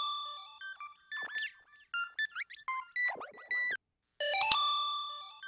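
Electronic synth jingle, ringtone-like: a quick rising run of bright notes, then short chirping and sliding notes, and another rising run about four seconds in.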